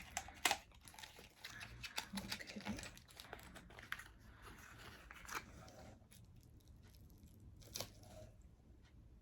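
Packaging being torn open and crinkled by hand, with a run of irregular crackles and sharp snaps that thins out after about six seconds to a few scattered clicks.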